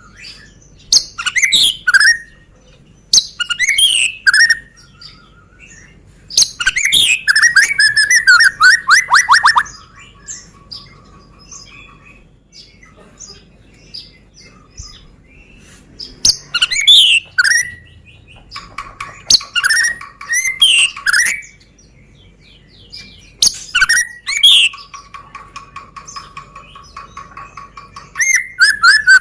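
White-rumped shama (Sumatran 'Medan' murai batu) singing: loud bursts of varied whistled phrases and fast rattling trills, separated by short pauses. Twice it holds a long, even, low buzzing note for a few seconds between phrases.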